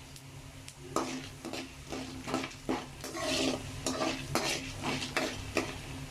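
A spoon stirring and scraping in a kadai in short repeated strokes from about a second in, while a tempering of mustard seeds, chana dal, urad dal and cumin fries with a sizzle in hot oil.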